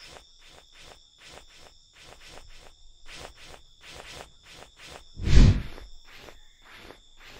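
Crickets chirping: a steady high trill pulsing about two to three times a second. About five seconds in comes one loud, short swish.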